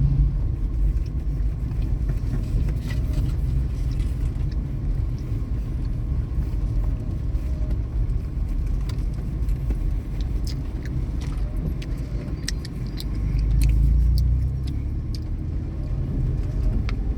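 A steady low rumble with a scatter of faint small clicks over it; the rumble swells for a couple of seconds near the end.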